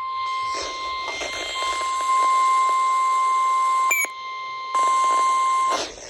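NOAA Weather Radio warning alarm tone: a single steady, high-pitched tone over a hiss of radio noise. It breaks off briefly twice and ends shortly before a voice begins, marking the start of a severe thunderstorm warning.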